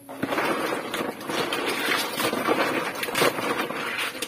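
Hands scrubbing and swishing shellfish together in a plastic basin of water to rinse off the mud: a steady mix of scraping, small clicks and sloshing.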